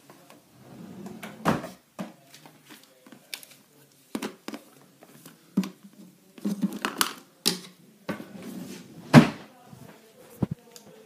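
Irregular knocks, taps and rustles of dolls and toys being handled and moved about, with louder thumps about a second and a half in and about nine seconds in.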